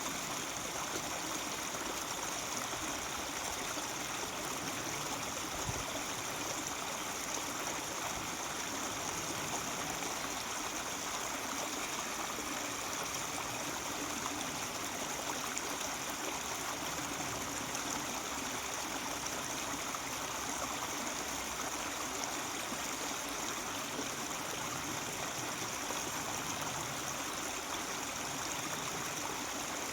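Mountain stream flowing over rocks, a steady babbling and gurgling rush of water.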